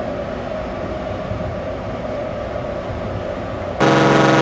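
A steady rumbling hum of the ship and wind on deck, then near the end a ship's horn starts suddenly with a loud, deep blast: the departure signal of a cruise ship leaving harbour.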